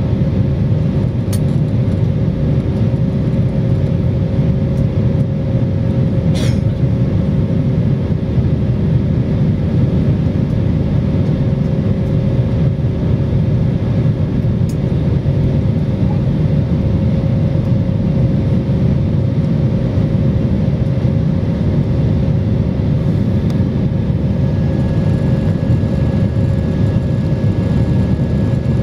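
Airbus airliner's cabin noise in flight shortly after takeoff: a steady low rumble of the jet engines and rushing air, with a faint steady hum over it. A brief click about six seconds in.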